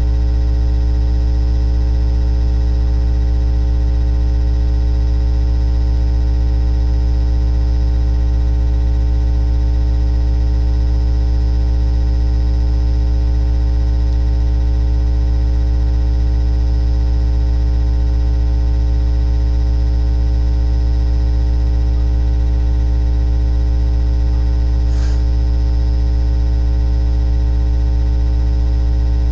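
Steady electrical hum and buzz, a low drone with a stack of even overtones above it that never changes; a faint tick about 25 seconds in.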